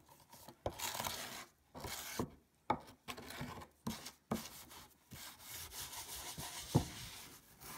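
Very fine 0000 steel wool scrubbing back and forth over a carved wooden panel coated in wet baking-soda paste, lifting the old wax finish: a run of rasping strokes with a few sharp knocks between them.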